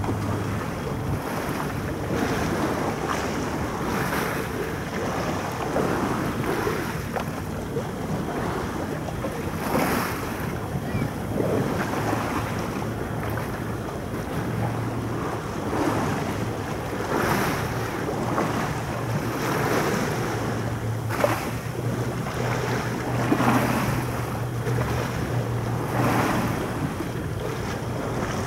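Distant fireworks going off as irregular dull booms, one every second or two, with wind rumbling on the microphone and a steady low hum underneath.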